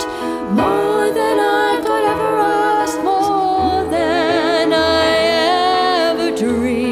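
Slow love ballad: a singer holds long notes with a wide vibrato over sustained accompaniment.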